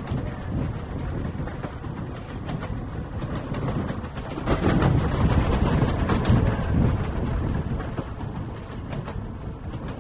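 Passenger train running, a continuous low rumble that grows louder about four seconds in, then eases off.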